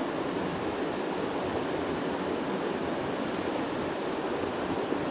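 Water of a small mountain trout stream rushing steadily, an even wash of flowing water.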